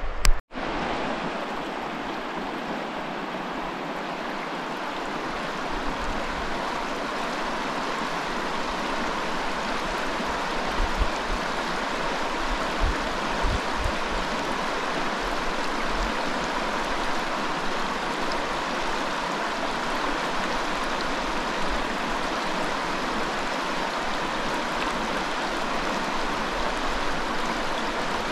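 Lätäseno river flowing, a steady rush of water that hardly changes, cutting out for a moment just after the start.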